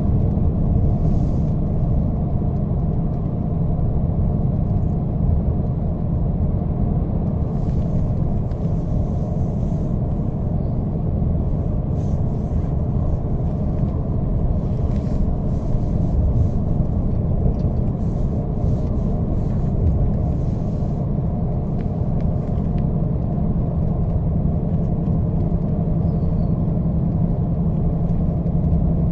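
Steady low rumble of a VDL Futura coach's engine and tyres on the road, heard inside the passenger cabin while under way, with a steady low hum and faint clicks and rattles from the interior.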